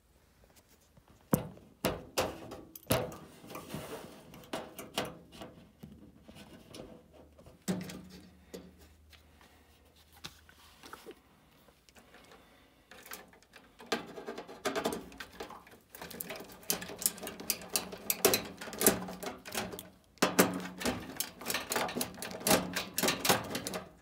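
Hand screwdriver backing screws out of a gas furnace's sheet-metal panel: scattered clicks and knocks, then quick runs of small clicks through the second half.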